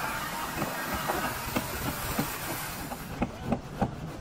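Irregular light clicks and taps, several a second with a few sharper ones near the end, over a steady hiss: hand work on the planking of a wooden boat under construction.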